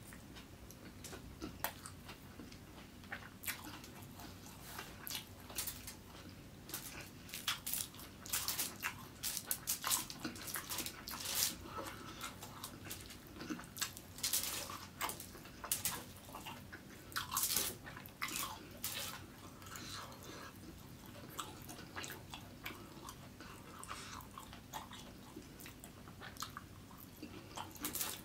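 Close-miked chewing of fried rice eaten by hand: irregular wet smacks and clicks of the mouth, busiest through the middle stretch.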